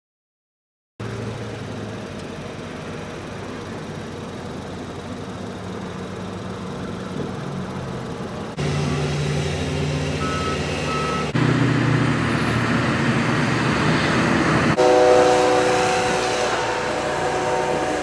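Engines of snow-clearing machines running: wheel loaders pushing snow, then a walk-behind snowblower and a small plow, in short clips that change abruptly. Two short high beeps sound about ten seconds in. The first second is silent.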